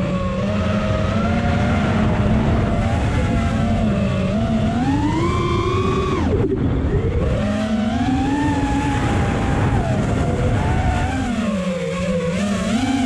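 FPV quadcopter's motors and propellers whining, the pitch rising and falling with the throttle. The pitch drops sharply about six seconds in as the drone flips toward the sky, then spins back up. Low wind rumble runs under the whine on the onboard microphone.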